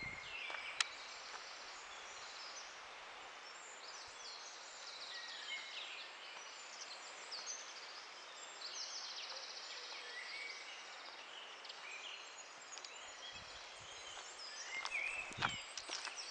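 Several small birds singing in woodland: short high chirps and rapid trills over a soft outdoor hiss, with a few footsteps on the path near the end.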